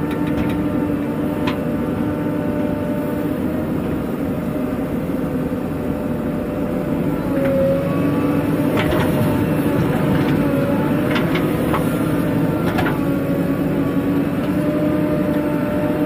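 Diesel engine of a JCB 3DX backhoe loader running steadily under working load with a steady whine while it digs and loads mud. Around the middle come several sharp knocks, soil clods dropping from the bucket into the tractor trolley.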